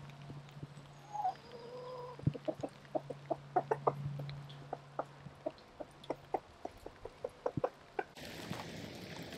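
Hens clucking: a short two-note call about a second in, then a quick, uneven run of short clucks.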